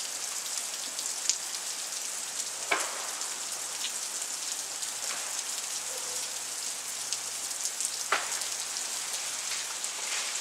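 Freezing rain falling steadily as a dense hiss, broken by sharp cracks of ice-laden tree limbs snapping, the two loudest about 3 seconds in and about 8 seconds in, with a few smaller ticks between.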